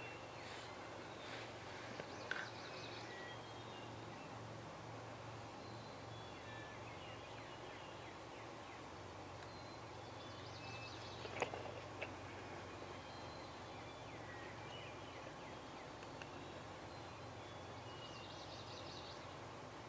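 Faint dawn field ambience with scattered songbird chirps and trills. About halfway through comes a short, loud rattling call, a gobble from a strutting wild turkey tom.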